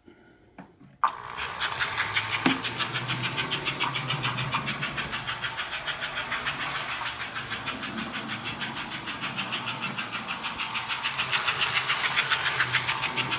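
American Flyer K325 Hudson toy steam locomotive starting off about a second in and running on the track, its motor and wheels whirring under a rhythmic chugging of several puffs a second, growing louder near the end.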